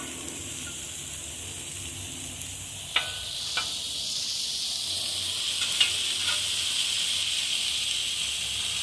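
Burger patties and potato wedges sizzling on a Blackstone flat-top griddle. The hiss swells about three and a half seconds in, and a metal spatula clicks against the griddle a few times as the wedges are turned.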